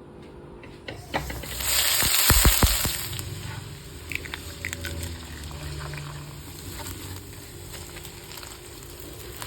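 Food frying in a hot pan, with a loud burst of sizzling about two seconds in. The sizzling then settles to a quieter steady frying with scattered light clicks.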